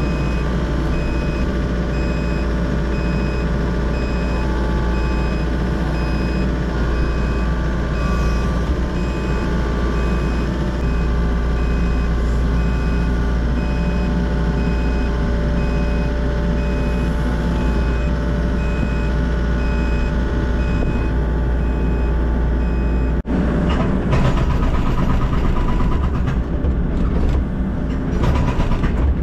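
Volvo excavator's diesel engine and hydraulics running under load, heard from the cab, with an electronic warning alarm beeping steadily about once a second. The beeping stops at a cut near the end, where the engine carries on.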